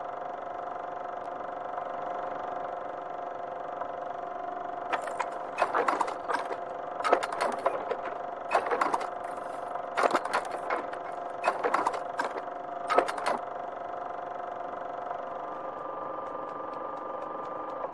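Vintage film projector sound effect: a steady whirring hum with bursts of rattling clatter from about five to thirteen seconds in.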